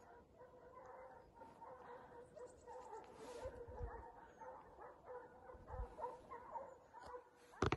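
Pack of hunting hounds baying in the distance as they drive a wild boar, with a single loud rifle shot near the end.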